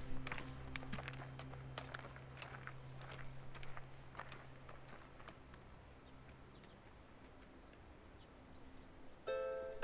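Irregular light clicks and taps that thin out and fade over the first few seconds, over a low steady hum that dies away. Then it is quiet, and music starts suddenly near the end.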